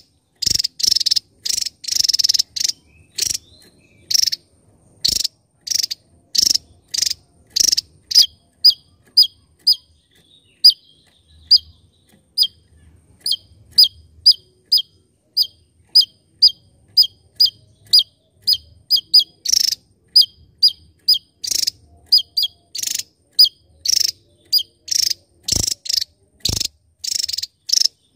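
Javan tesia singing: a long, even series of short, sharp, high-pitched notes, about two or three a second. Around a third of the way in, the notes turn thinner and slide down in pitch. Near the end they turn fuller again.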